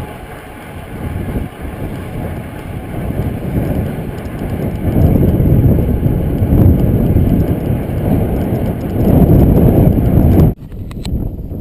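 Wind buffeting the microphone of a camera riding on a moving bicycle: a loud, gusting low rumble that swells about halfway through and cuts off suddenly near the end.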